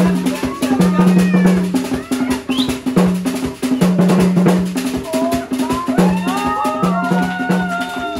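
Live drumming by a group of hand drummers, beating a fast, steady rhythm over low repeated tones. In the last two seconds, voices call out with rising and falling pitch over the drums.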